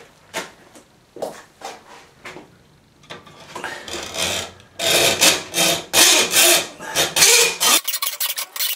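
A few light clicks of handling, then a hand hacksaw cutting the steel saw blade of a folding knife clamped in a vise, with quick rhythmic back-and-forth rasping strokes. It is cutting off the hook on the knife's saw blade.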